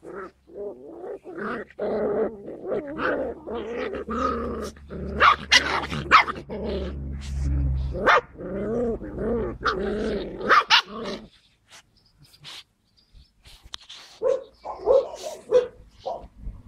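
Skye Terrier puppies growling and yapping as they play-fight, nearly without a break for about eleven seconds. After a short lull, a few brief yips follow near the end.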